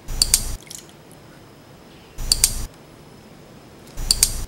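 Three identical short click sound effects from a like-and-subscribe overlay animation, about two seconds apart, each with a sharp start and stop.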